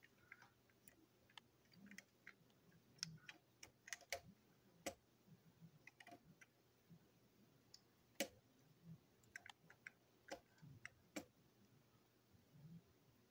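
Faint, irregular clicks and ticks of a small screwdriver turning screws in a plastic toy-train chassis, with the sharpest click about eight seconds in.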